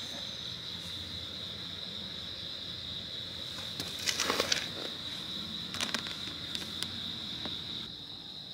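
Crickets chirring steadily in one continuous high-pitched band, with a few brief rustling scuffs about four and six seconds in.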